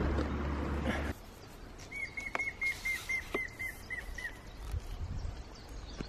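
Grey-headed woodpecker calling: a run of about a dozen clear whistled notes that slows and falls slightly in pitch toward the end. Before it, about a second of loud rushing noise cuts off abruptly.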